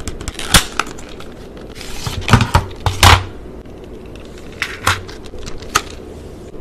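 A small cardboard box being opened and clear plastic blister trays of press-on nails pulled out and handled: a series of sharp crinkles and clicks, the loudest about three seconds in.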